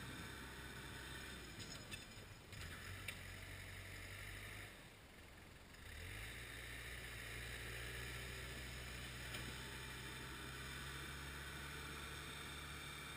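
Diesel engine of snow-plowing heavy equipment running steadily, with a few light clicks. Near the middle it briefly drops away, then comes back with a short rise in pitch.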